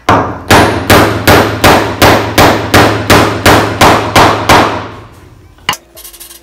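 Hammer driving a wooden dowel into a breadboard-end pin hole: about a dozen evenly spaced blows, about three a second, then one lone knock near the end. The dowel goes in smoothly, without much resistance, a sign that it is seating well.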